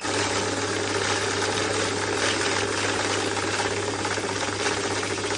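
Pioneer Eco 805 banknote counting machine running a count: its motor hums steadily while the feed rollers riffle a stack of notes through at high speed. The sound cuts off suddenly near the end when the stack has run through.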